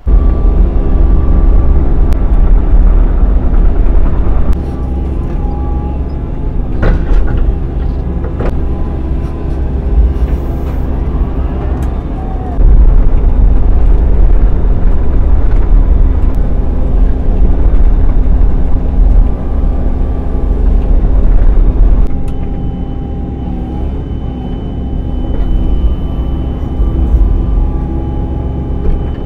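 Cat 305E2 mini excavator's diesel engine and hydraulics working, heard from inside the cab. It runs loud for the first few seconds, eases for several seconds, swells again from about twelve to twenty-two seconds in, then eases. Two sharp clunks come about seven and eight and a half seconds in, and a thin high whine sets in over the last stretch.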